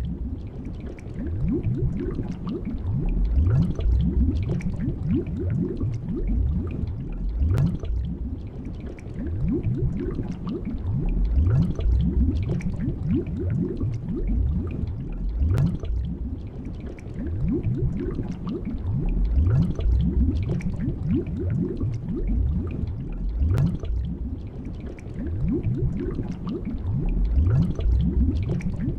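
Underwater ambience of steady low bubbling and gurgling water, with a sharp click about every eight seconds.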